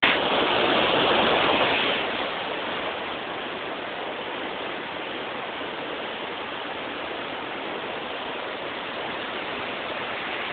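Waterfall: water rushing steadily, a little louder for the first two seconds.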